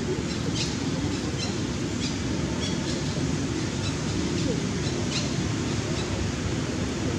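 Steady rushing outdoor background noise, with faint short high chirps or ticks every second or so.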